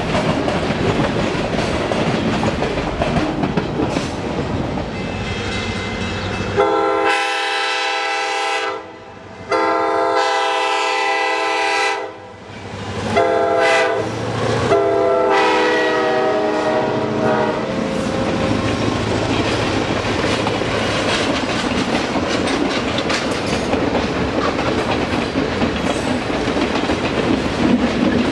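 Freight cars rumbling and clacking over the rail joints, then a diesel locomotive's multi-chime air horn sounds four blasts, long, long, short, long: the grade-crossing signal, from an EMD FL9 approaching. The steady rumble and clickety-clack of passing trains follows.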